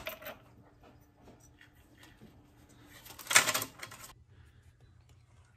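Quiet handling noise from working parts by hand at a shock absorber's upper mount, with one short scraping rustle a little over three seconds in.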